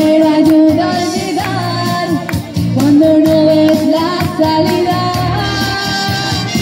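A girl singing into a handheld microphone, a melody of long held notes, over accompaniment music.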